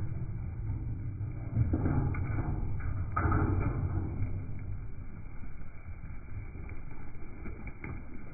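Hooves of a flock of Zwartbles sheep trotting past close by on soft, muddy ground: a low, rumbling patter that grows louder twice, about two and three seconds in.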